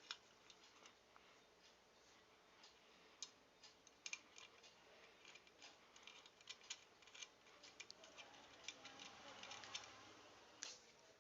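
Faint, irregular light clicks and taps of small objects being handled, thickest in the middle of the stretch.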